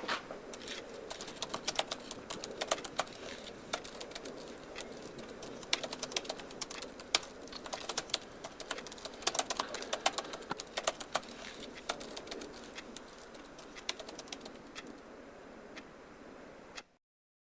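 Typing on a laptop keyboard: irregular flurries of quick key clicks over a low steady hiss, cutting off suddenly near the end.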